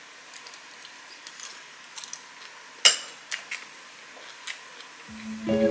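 Cutlery clinking against plates and bowls in a few scattered light taps, the loudest about three seconds in with a short ring. Guitar music comes in near the end.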